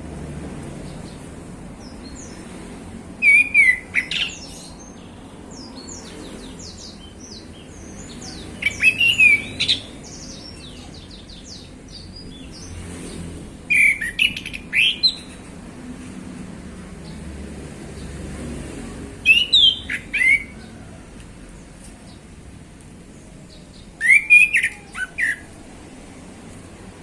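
Male orange-headed thrush singing: five short, loud phrases of quick whistled notes and trills, about one every five seconds, with fainter short notes between them.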